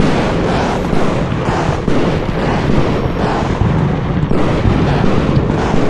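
Fireworks going off in a rapid, continuous barrage: loud bangs and crackle following one another with no pause.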